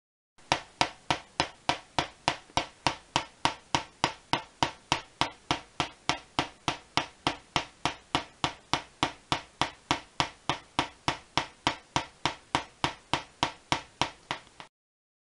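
Halfbridge solid state Tesla coil snapping out short spark discharges at a steady rate of about three a second. The interrupter gives a long off time and a short on time, so each firing is a single sharp crack. The sparking starts about half a second in and stops abruptly near the end.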